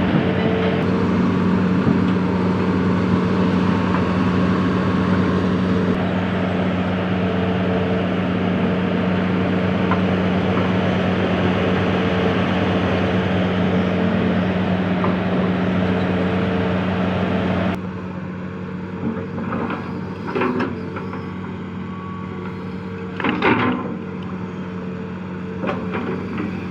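Excavator's diesel engine running steadily as the machine crawls slowly on its tracks. About eighteen seconds in the sound drops suddenly to a quieter level, followed by a few short, sharp clanks or squeaks.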